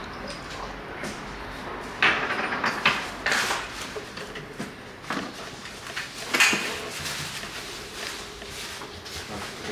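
Plastic protective wrap being pulled and crumpled off a new motorcycle, crinkling and rustling in several short bursts.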